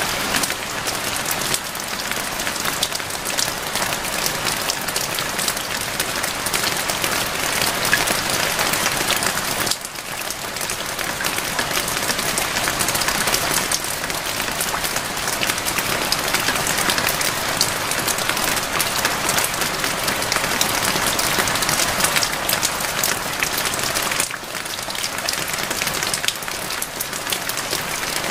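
Steady rainfall: a dense hiss with many individual drops ticking through it. It dips briefly about ten seconds in and again a few seconds before the end.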